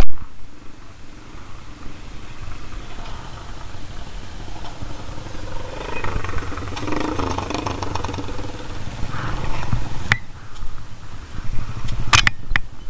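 Custom chopper motorcycles running slowly on a rocky trail, the engine sound growing louder and denser about six to eight seconds in as one bike runs right beside the camera. Two sharp knocks come near the end.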